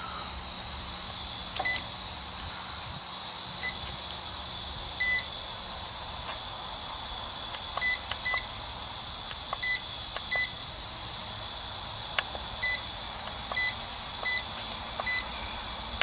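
Digital clamp meter beeping as its buttons are pressed to clear and reset it, about ten short electronic beeps at uneven intervals, with the compressor stopped. A steady high insect trill, like crickets, runs underneath.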